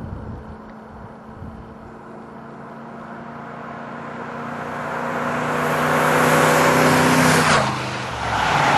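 A vehicle with a modified aftermarket exhaust approaching and driving past. Its engine note grows steadily louder, then drops in pitch as it passes, and the exhaust is loud again near the end.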